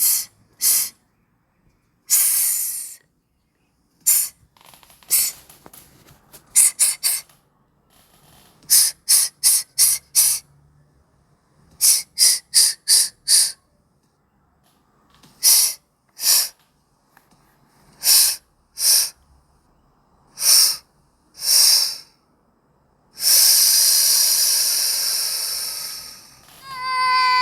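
Short bursts of hissing, some single and some in quick runs of three or four, then a longer hiss of about three seconds near the end.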